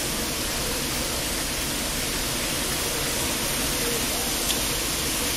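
Steady wind noise among tall bamboo: an even rushing hiss that does not let up.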